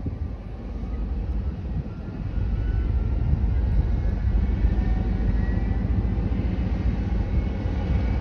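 Class 56 diesel-electric locomotive hauling a freight train. Its Ruston-Paxman sixteen-cylinder engine runs with a low drone and a faint whine, growing louder from about two and a half seconds in as the train approaches.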